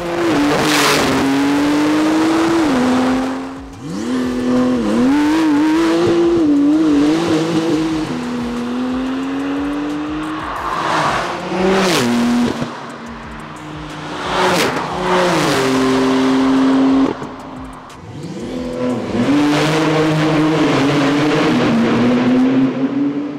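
Tuned Porsche 992 Turbo S twin-turbo flat-six accelerating hard, its note climbing through the revs and dropping at each upshift, with several quick whooshing pass-bys.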